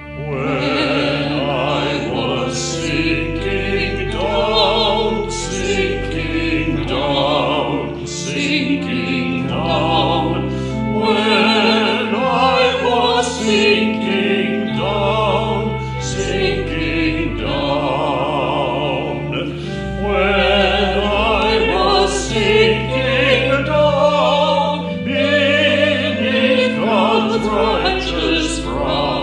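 Choir singing a slow sacred piece over sustained low accompaniment, the voices held with vibrato.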